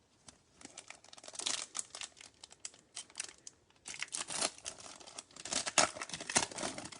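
Foil wrapper of a Bowman Chrome trading-card pack being torn open and crinkled: an irregular run of crackles, densest and loudest in the second half.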